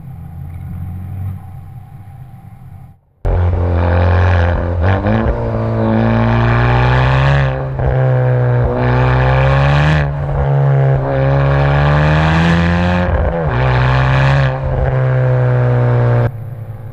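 Honda Civic Type R FK8's turbocharged 2.0-litre four-cylinder heard close at the tailpipes of its Remus exhaust with the valve open. It pulls hard and loud, the pitch climbing slowly through the revs, with several brief dips between pulls. For the first three seconds it is quieter, heard from inside the cabin.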